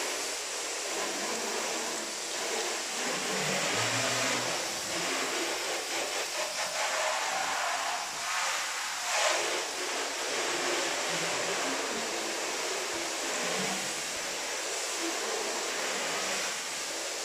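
Water spraying from a hose wand onto a helicopter's aluminium fuselage skin as a steady hiss, rinsing off the freshly applied Alodine conversion coating.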